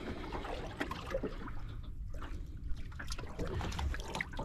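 Water lapping against the hull of a small drifting boat, over a low steady rumble, with scattered faint clicks and taps.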